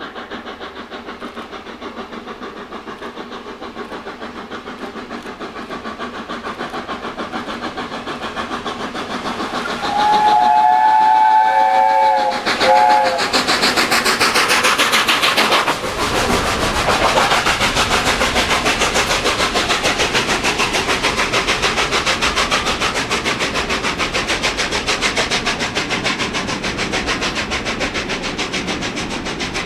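A1 Peppercorn steam locomotive 60163 Tornado approaching and sounding its chime whistle: a long blast of several notes together, then a short one. The train then passes close at speed, with loud, rapid, even beats of exhaust and wheels on the rails.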